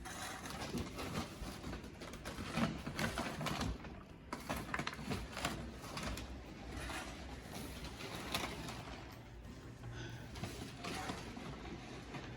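Irregular crunching and scraping of hand snow-clearing work on a driveway, a run of short uneven strokes.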